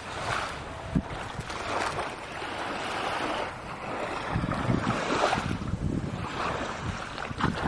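Sea waves washing onto a beach, the surf swelling and falling back every second or two, with wind buffeting the microphone in low rumbles and a short knock about a second in.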